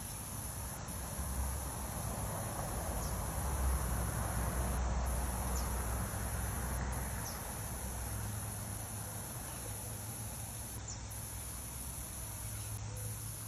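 Steady high-pitched insect buzzing with a few short breaks, over the hiss of a lawn sprinkler spraying water.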